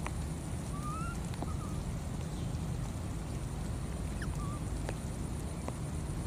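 Steady low outdoor rumble, with a few faint short high calls that rise in pitch, one about a second in and another past the four-second mark, and some faint ticks.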